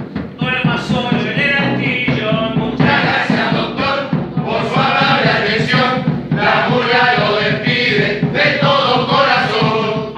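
A mixed group of men and women singing a murga song together, accompanied by a strummed acoustic guitar keeping a steady rhythm.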